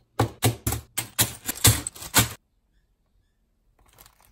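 Plastic bags of Lego parts crinkling and rattling as they are handled, in about nine quick, even strokes, roughly four a second, that stop a little over two seconds in, followed by a few faint rustles.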